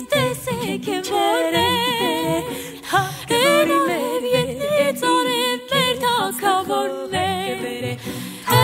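Background music: singing with strong vibrato, mostly or wholly unaccompanied.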